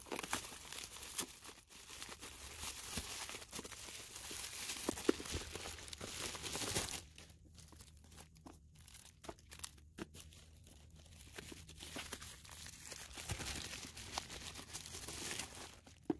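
Plastic bubble wrap crinkling and tearing as it is cut open and pulled off packages. There is a dense crackling rustle for the first seven seconds or so, then sparser rustles and clicks.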